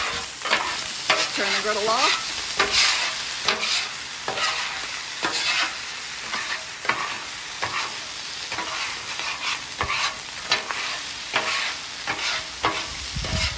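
Metal spatula and bench scraper scraping and clacking on the steel cooktop of a Blackstone flat-top griddle as fried rice is chopped, turned and pushed into a pile, over a steady sizzle of frying. A brief falling squeak comes about a second and a half in.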